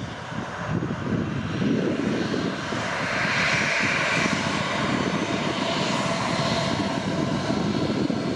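Boeing 737-900's twin CFM56-7B turbofan engines at taxi power: a steady low rumble with a hissing whine that swells in the middle as the jet comes nose-on with its intakes facing the listener, then eases as it turns past.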